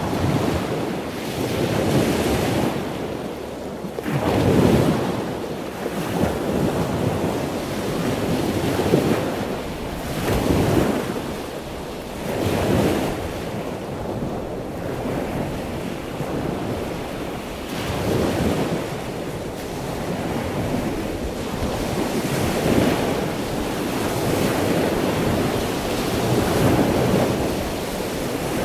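Wind buffeting the microphone, a rushing noise that swells and fades in gusts every few seconds.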